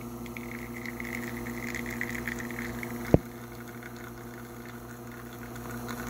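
Espresso machine pump running steadily at full brewing pressure of about 9 bars while the shot flows, with a light hiss over the first few seconds. A single sharp click sounds about three seconds in.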